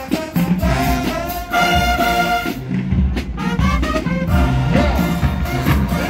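College marching band playing loudly: a brass section of trumpets, trombones and sousaphones blasts chords over pounding drums. A held chord cuts off about halfway through, then a new phrase begins.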